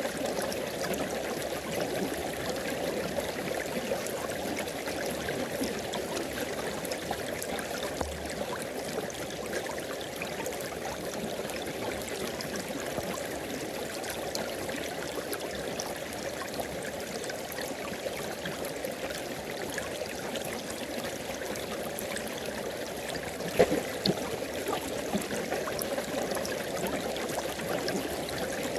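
Tropical river water flowing steadily in a continuous rushing burble. A single sharp click stands out late on.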